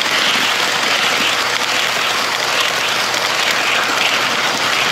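HO-scale model passenger cars rolling past close by on track: a steady hissing rush of wheels on rail, swelling slightly a few times a second.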